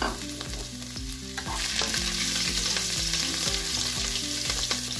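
Minced ginger and garlic sizzling in hot oil in a nonstick frying pan, stirred with a spatula. The sizzle swells about a second and a half in.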